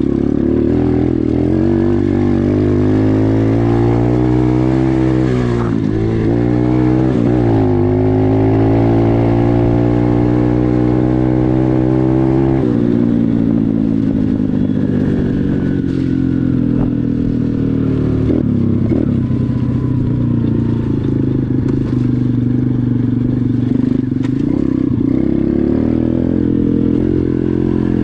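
Single-cylinder 125cc KXD dirt bike engine under way: it revs up and holds high revs with a brief dip about six seconds in, drops sharply about twelve seconds in, then the pitch sinks slowly and levels off. Occasional knocks and clatter come from the bike running over rough ground.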